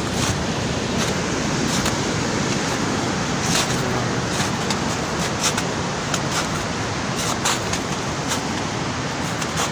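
Steady rushing noise of a storm outdoors, with scattered sharp ticks through it.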